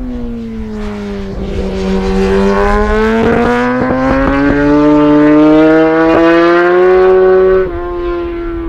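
Kawasaki ZX-10RR's inline-four engine running at high revs on track. Its pitch sags as the bike goes through a corner, then climbs steadily as it accelerates away, and drops suddenly near the end.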